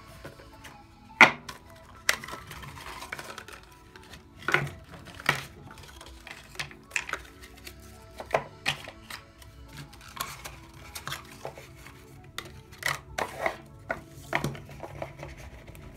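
Cardboard box and white plastic packaging tray of a pair of earbuds being opened and handled on a wooden table: irregular taps, clicks and scrapes, the sharpest about a second in, over faint background music.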